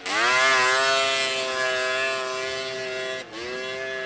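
Snowmobile engine revving up and then held at high, steady revs, with a brief dip in revs about three seconds in before it climbs back.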